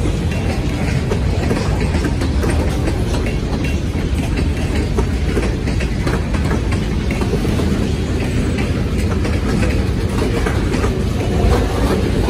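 Freight train cars rolling past, a steady rumble of steel wheels on rail with scattered clicks from the wheels.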